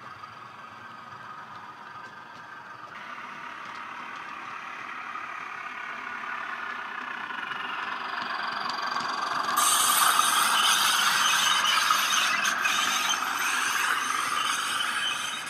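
Model Heljan 10800 diesel locomotive's DCC sound decoder playing diesel engine sound through its small speaker, mixed with the rattle of model coach wheels on the track. It grows louder as the train approaches and jumps up sharply about ten seconds in.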